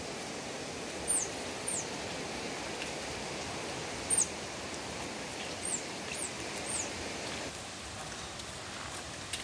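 Steady hiss of a backpack pressure sprayer's wand misting disinfectant, which stops about two seconds before the end. A bird gives several short, high, falling chirps over it.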